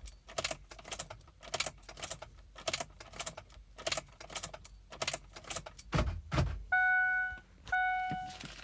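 Ignition key of a 2004 Ford Explorer being turned off and on over and over, clicking about twice a second with the key ring jangling. About six seconds in come two low thumps, the door locks cycling to show the system is in programming mode. Then a dashboard chime starts sounding in repeated tones.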